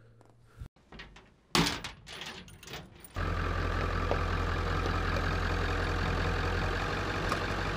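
Ford OBS pickup's 7.3-litre Power Stroke turbo-diesel V8 idling steadily, cutting in abruptly a little after three seconds. Before it, a loud thump about one and a half seconds in and a short stretch of rustling noise.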